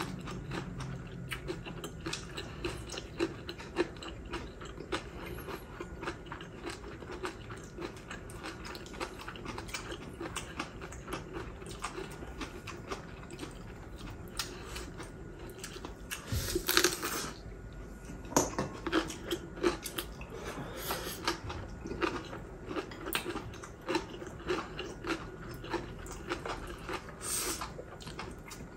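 Two people chewing and biting food: braised beef ribs, crunchy cucumber-pepper kimchi and rice. Many small crunches and mouth clicks go on throughout, with a louder burst of crunching a little past halfway and another near the end.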